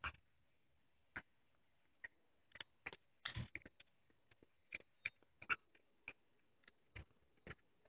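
Cat eating from a plate: faint, irregular wet clicks and smacks of its mouth as it chews, one or two a second with a small cluster about three seconds in.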